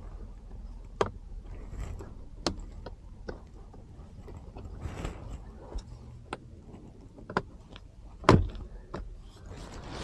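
Irregular clicks and knocks of car parts being handled and fitted by hand, with the loudest knock about eight seconds in.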